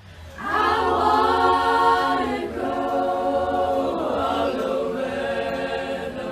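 Girls' choir singing a cappella, entering out of silence and swelling into held chords that shift in phrases about two and a half and four seconds in.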